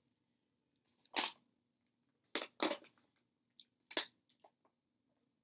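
Thin plastic water bottle crackling in the hand as it is picked up and drunk from: four short, sharp crackles, one about a second in, two close together about halfway, and one more a little later.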